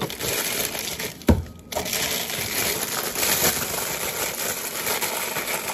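Clear plastic produce bag crinkling and rustling as it is handled and opened, with one sharp knock about a second in.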